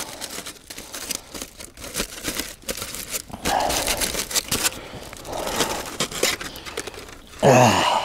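Crinkling and crunching handling sounds with many scattered sharp clicks, and a short low vocal grunt near the end.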